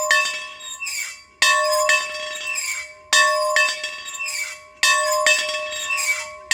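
A metal bell being rung, its clapper striking in pairs about every second and a half to two seconds, each stroke ringing on with a clear steady tone.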